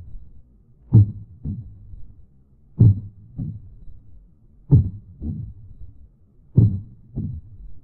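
Slow heartbeat sound effect: four pairs of low thumps (lub-dub), each pair repeating a little under every two seconds.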